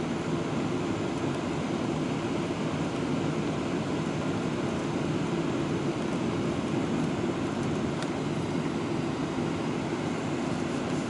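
Steady airliner cabin noise during the descent to land: jet engines and rushing air heard from inside the cabin, an even, unchanging low rush.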